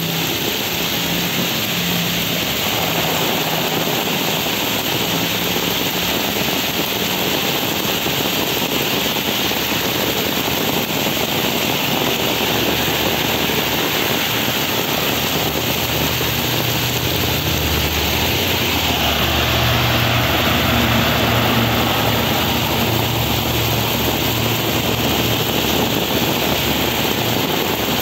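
Torrential rain pouring onto a flooded street, a loud, steady, dense hiss. A vehicle's low rumble joins it in the second half.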